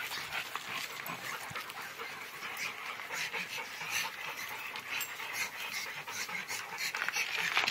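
A dog panting steadily and fast, close to the microphone.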